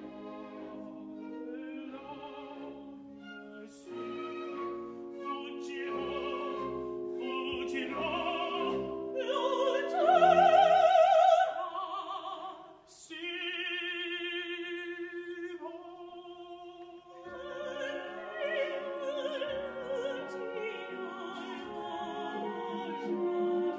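Mezzo-soprano and tenor singing a bel canto opera duet with instrumental accompaniment, their voices in strong vibrato. A loud, sustained high note comes about ten seconds in.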